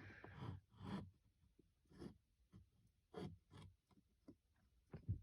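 Faint, scattered clicks and rustles of a plastic 3D-printed mount being handled and set down into a dashboard cubby.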